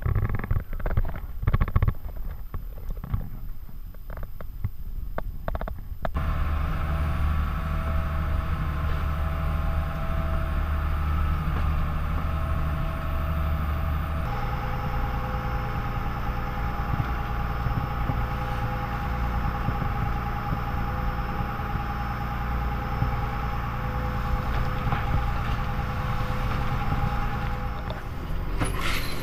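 Fishing boat's engine running steadily with a constant drone, its note shifting slightly about halfway through; before it cuts in, a few seconds of wind noise and scattered knocks.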